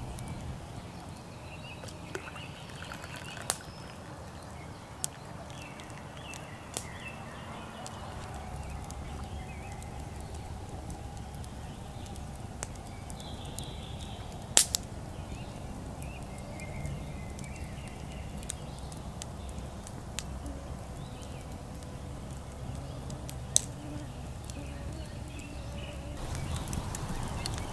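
Campfire burning with a low crackle and a handful of sharp wood pops every few seconds, the loudest about halfway through. Faint bird calls sound in the background.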